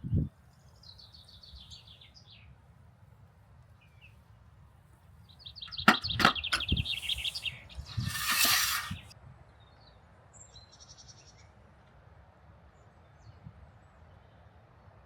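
Wild birds chirping and trilling in short high phrases, several times. A few sharp knocks come around the middle, followed by a brief hiss of about a second.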